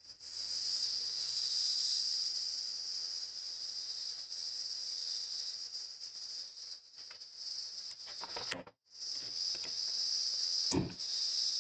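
Steady high-pitched insect drone like a cricket chorus, which drops out for a moment about three-quarters of the way through. Near the end come a few short taps and scrapes of chalk on a blackboard.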